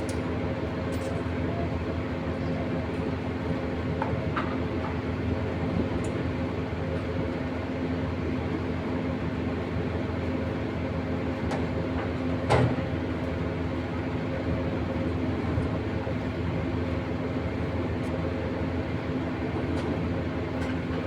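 Steady mechanical drone with a constant low hum, broken by a few faint clicks and one sharper knock about twelve seconds in.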